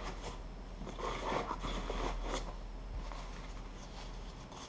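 Faint rustling and scraping of cloth and bag fabric as gear is handled, with a few light handling clicks.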